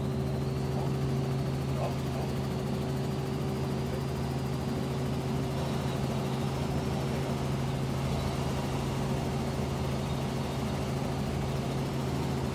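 Robinson R44 Astro helicopter heard from inside the cabin in flight: a steady drone from its six-cylinder piston engine and rotors, with a constant low hum. The sound cuts off abruptly at the end.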